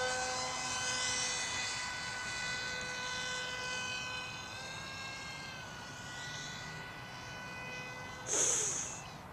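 Electric motor and 6x4 propeller of a foam-board RC jet-style plane flying, a steady pitched whine that slowly fades, rising briefly in pitch about halfway through and settling back. Near the end a short, loud rushing hiss cuts across it.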